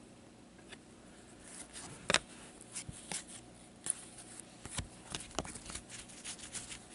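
Trading cards handled by gloved hands: light clicks, taps and rustles as cards are slid, sorted and set down, the sharpest tap about two seconds in.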